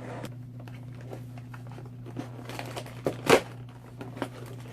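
Cardboard snack box being handled and torn at, crinkling and rustling, with a sharp knock a little over three seconds in.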